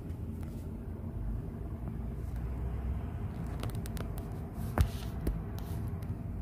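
Steady low rumble of the city around high-rise blocks, typical of distant traffic. A few short sharp clicks fall in the second half, the loudest a single knock about five seconds in.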